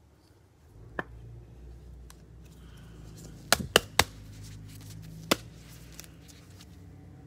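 A handful of sharp clicks and taps from trading cards and card holders being handled and set down: one about a second in, three in quick succession past the middle, and one more a little later, over a low steady hum.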